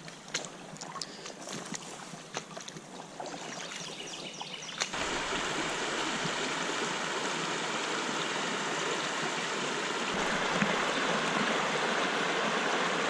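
Shallow creek water flowing over rocks. For the first five seconds there is irregular splashing and sloshing from wading against the current; then, suddenly, a steady and louder rush of flowing water.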